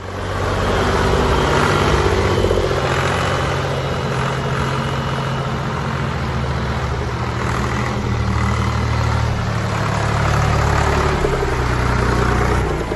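Diesel engine of a 1967 International McCormick 523 tractor running steadily as the tractor moves slowly. Its loudness swells slightly a couple of times.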